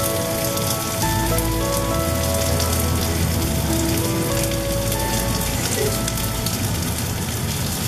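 Background music, a melody of held notes over a bass line, mixed with a steady, dense hiss that sounds like rain.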